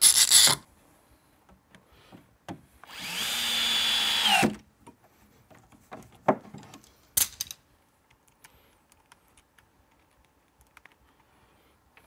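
Festool cordless drill driving a pocket-hole screw into plywood: the motor runs at a steady whine for about a second and a half, then winds down in pitch as the trigger is released. A brief loud noise comes right at the start, and two sharp knocks follow the drilling.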